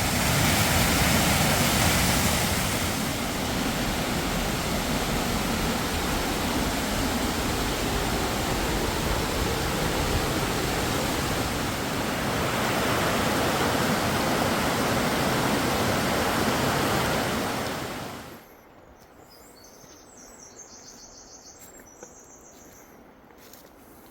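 Steady rush of water, like a waterfall or rapids, at a full even level that cuts off suddenly about eighteen seconds in. Quiet outdoor ambience follows, with a brief high trill.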